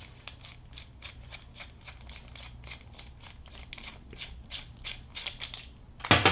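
Threaded collar on the head of an RZX hand rivet nut tool being spun off by hand: a run of small, irregular metal clicks, with a louder click near the end.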